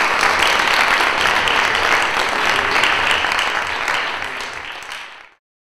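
Audience applauding. The clapping is steady, dies away over the last second or so, and cuts off near the end.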